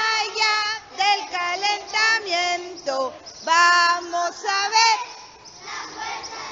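A group of young children singing together, a simple song in short sung phrases. The singing stops about five seconds in, leaving quieter scattered children's voices.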